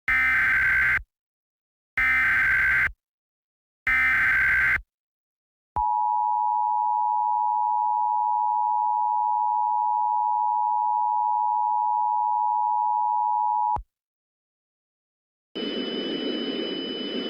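Emergency Alert System broadcast opening: three one-second bursts of buzzing SAME header data tones, then the EAS two-tone attention signal, a steady dual tone held for about eight seconds before cutting off. After a brief silence, a steady hiss with a high whine begins near the end.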